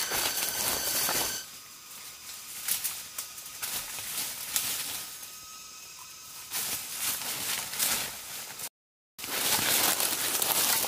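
Footsteps crunching and rustling through dry leaf litter and forest undergrowth as a person walks and climbs, with a crackle of twigs and leaves. The sound cuts out completely for about half a second a little past eight seconds in.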